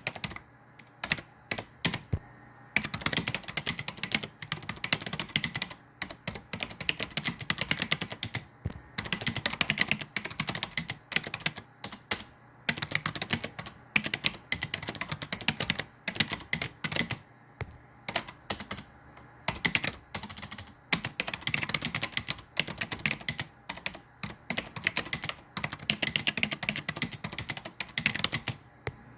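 Typing on a computer keyboard: fast runs of key clicks with short pauses between bursts.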